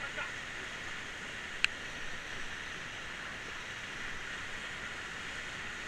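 Steady rush of river rapids around the raft, a hiss of fast-flowing water. A single sharp click cuts through it about a second and a half in.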